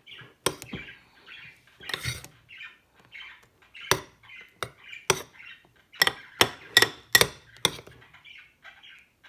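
A spoon stirs thick, foamy slime made with shaving foam in a bowl: a run of sharp clicks and squishy pops, coming quickest from about six seconds in.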